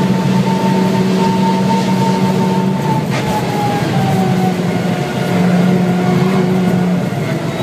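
Cabin sound of a VW Scirocco 2.0 TSI (turbocharged four-cylinder) at around 200 km/h, with engine, tyre and wind noise. The engine note holds steady, then drops and keeps falling after about three seconds as the car slows from flat out. A brief click comes at the moment the note drops.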